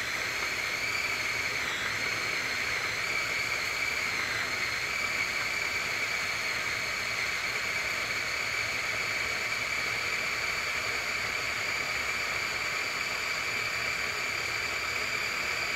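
Small electric food chopper running continuously with a steady high-pitched motor whine, chopping onion, celery, garlic and bell pepper.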